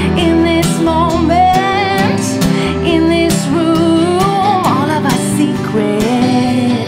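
Live song with strummed acoustic guitar and a woman singing a wavering, gliding melody over it.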